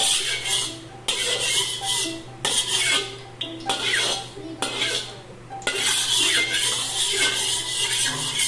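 Metal spatula scraping and stirring around the inside of a stainless steel wok with a little oil, in spells that stop and start several times.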